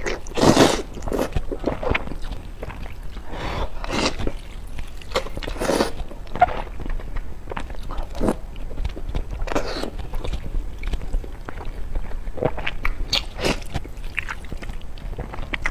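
Eating sounds: repeated wet slurps of glass noodles in a sour-spicy broth, with chewing and biting into a whole peeled egg.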